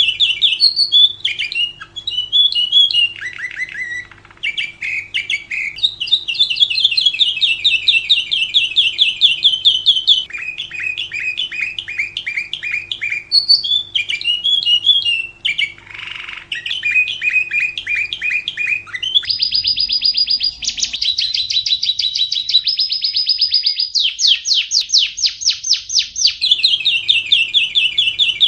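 Lovebird singing in long, fast trills of high, shrill chirps, each phrase running several seconds with brief breaks between them. This is a trained song used as a master recording for young lovebirds to learn from.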